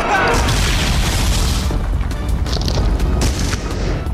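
Action cartoon score with a steady heavy beat, overlaid by a loud boom and a crashing impact effect in the first second and a half, with a short downward whoosh as it begins.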